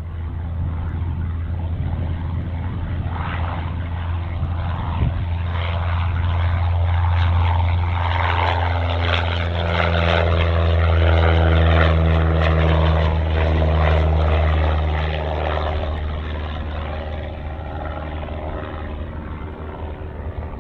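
Single-engine propeller light aircraft at full takeoff power, a steady engine and propeller drone. It grows louder as the plane lifts off and passes near, peaking around the middle, then fades as it climbs away.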